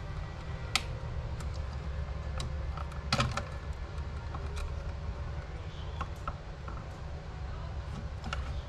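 Scattered light clicks and taps as a wall light switch and its wires are handled and worked loose from the switch, the loudest cluster about three seconds in, over a steady low hum.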